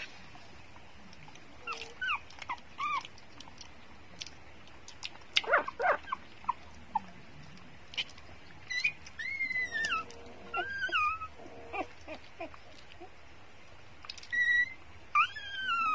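Newborn puppies whimpering and squeaking while nursing: short high-pitched squeals, several sliding down in pitch, come in scattered bouts, the longest about nine seconds in and near the end, with a few faint clicks between.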